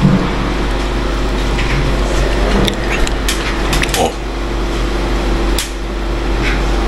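A steady low machine hum, with a few scattered light clicks and knocks.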